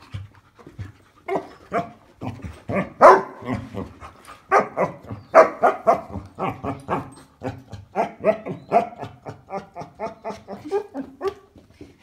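Basset hound vocalizing in play: a rapid run of short barks and whines, two or three a second.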